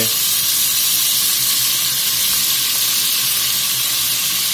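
Chunks of raw cube steak sizzling steadily as they sear in hot avocado oil and bacon fat, with more chunks laid into the pot.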